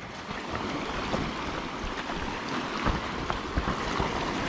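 Seawater washing against shore rocks, a steady hiss of water, with wind rumbling on the microphone.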